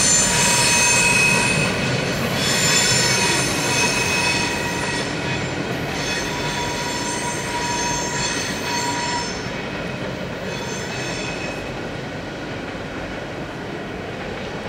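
Empty freight gondola cars rolling through a curve, their wheels squealing against the rails over a steady rolling rumble. The high-pitched squeal comes and goes in several waves and dies out about eleven seconds in, and the rumble grows fainter as the last cars move away.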